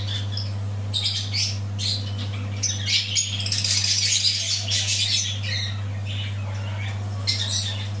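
Small pet parrots squawking and chattering in short, high calls, busiest around the middle, over a steady low hum.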